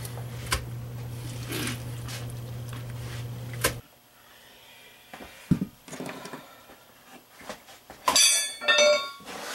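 Hands scooping foamy tire-mounting paste off a tire and steel wheel into a plastic bucket: soft scraping and a few light knocks over a steady low hum. About four seconds in the hum stops and it goes much quieter, with scattered knocks and a few short high squeaks near the end.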